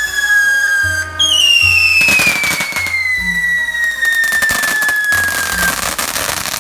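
Whistling fireworks at a funeral: a long falling whistle fades out about a second in, and a second whistle starts and slides slowly down in pitch for several seconds. Dense crackling pops join from about two seconds in. Music plays underneath.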